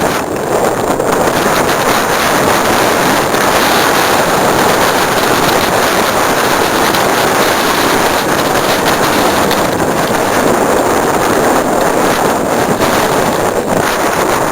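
Steady rush of wind over the camera microphone while riding a mountain bike down a dirt trail, with faint knocks and rattles from the bike running over the ground.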